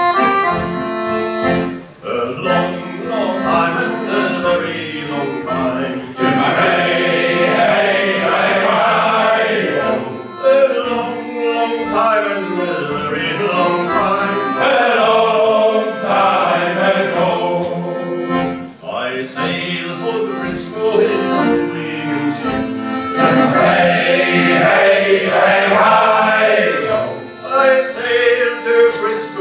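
Male shanty choir singing a sea shanty in unison and harmony, accompanied by an accordion.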